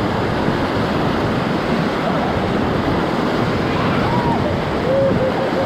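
Whitewater rapids rushing and splashing around a raft, a steady loud rush of water with wind buffeting the microphone.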